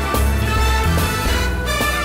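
Upbeat background music with a steady beat over a bass line.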